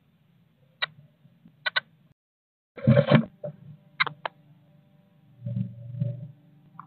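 Adult blue tit moving about inside a wooden nest box: a few sharp clicks, a loud scuffling thump about three seconds in, two more clicks, then muffled low rustling as it shuffles in the nest cup.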